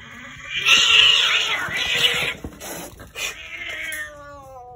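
Two domestic cats squabbling: a loud, harsh hissing screech about a second in, a few shorter cries, then near the end a long low yowl that slides down in pitch and holds.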